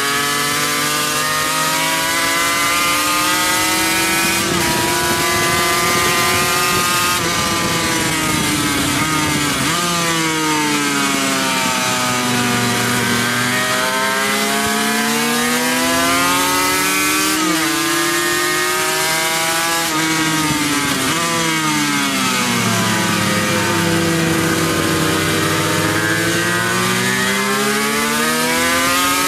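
Racing motorcycle engine heard from on board at speed, its revs climbing hard up through the gears and dropping on the downshifts into corners several times over. Heavy wind rush on the microphone runs under it.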